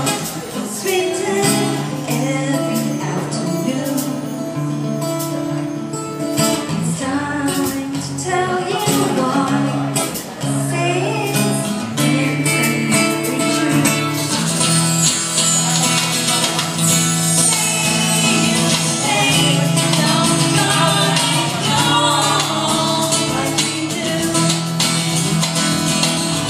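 A woman singing a song live into a microphone, accompanied by a strummed acoustic guitar.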